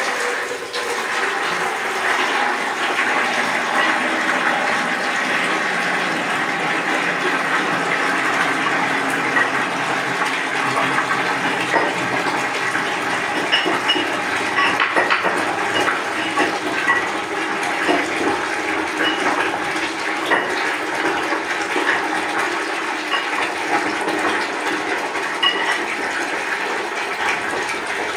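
Water running steadily into a ceramic squat-toilet pan and its P-trap, washing out cement debris that blocks the trap, with a few faint clicks from work inside the outlet.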